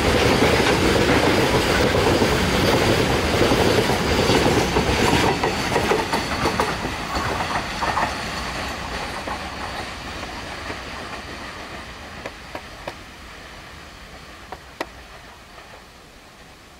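Container freight train's wagon wheels clattering over the rail joints as the last wagons and brake van go by. The sound fades steadily as the train draws away, with a few sharp clicks toward the end.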